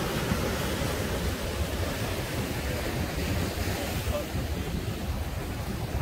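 Ocean surf breaking and washing over a sandstone rock shelf, a steady rushing noise, with wind buffeting the microphone.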